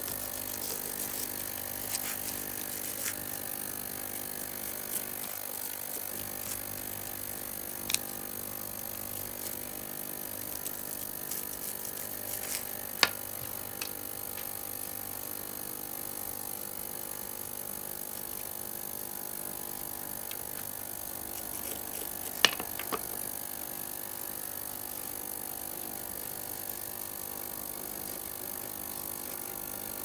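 A few sharp clicks and taps of small metal reel parts and tools being handled during baitcasting reel maintenance, the loudest two about halfway through and near three-quarters, over a steady faint background hum.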